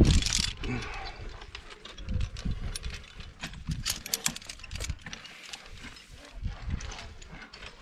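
Climbing gear being handled: metal carabiners clicking and clinking against one another and the rope rustling through the hands, in a scatter of short irregular clicks.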